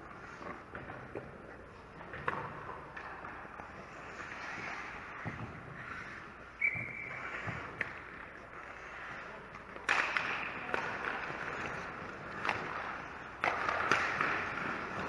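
Ice hockey play: skate blades scraping on the ice with scattered clacks of sticks and puck. Louder hissing skate scrapes start about two-thirds of the way in and again near the end.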